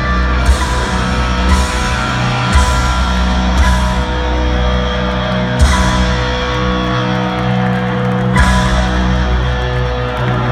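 Rock band playing live in a stadium, heard from the crowd: electric guitar, bass and drums with repeated cymbal crashes over sustained notes.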